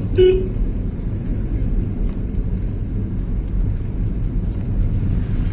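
A car's engine and road noise heard from inside the moving car: a steady low rumble, with one short sharp note just after the start.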